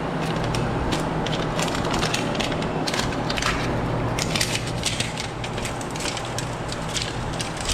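Paper-insulated sheet-copper transformer winding being pulled apart and unwound by hand: a dense run of crinkling and crackling, over a steady low hum.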